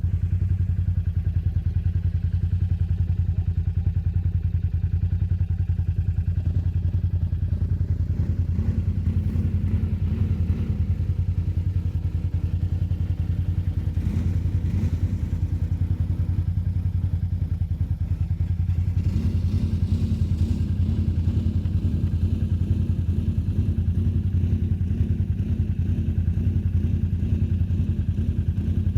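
ATV engine running steadily at low revs, a deep, even drone. About two-thirds of the way through, a rougher, pulsing note joins it.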